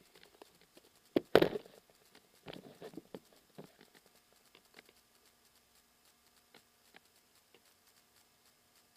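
Handling noise on the camera's own microphone: two sharp knocks a little over a second in, the second the loudest, then a short stretch of rustling and scraping as the camera is set down by the track, followed by faint scattered ticks.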